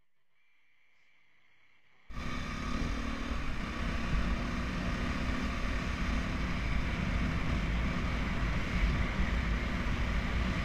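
Near silence for about two seconds, then a dirt bike's engine comes in abruptly and runs steadily under way, picked up by a helmet-mounted camera.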